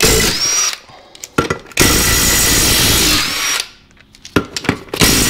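Power tool spinning out the rear wheel bolts: a short burst at the start, then a longer run of about a second and a half from about two seconds in, each opening with a rising motor whine. A few light metallic clicks follow near the end.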